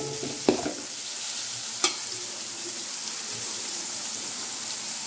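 Sliced onions, green chillies and mint sizzling steadily in hot oil in a large metal kadai. A steel ladle scrapes and knocks against the pan a couple of times right at the start and once more about two seconds in.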